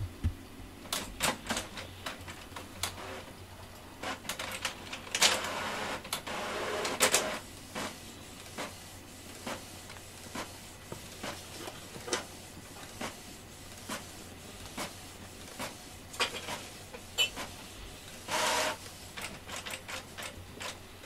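Cat licking and grooming at close range: irregular sharp wet clicks, one or two a second, with two longer spells of rustling fur, about five to seven seconds in and again near the end.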